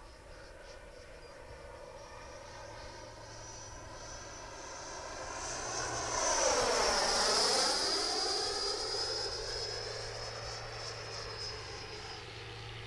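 Electric ducted fan (Wemmertec 90) of an RC jet whining as the model makes a fast pass. It grows louder to a peak about seven seconds in, then fades, the pitch of the whine dropping as it goes by.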